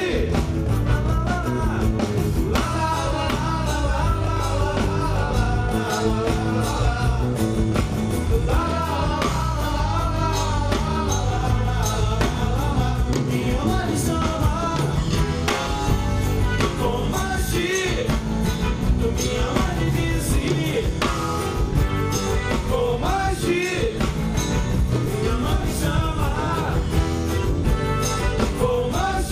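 Live samba-rock band playing, with a man singing over acoustic guitar and a full band.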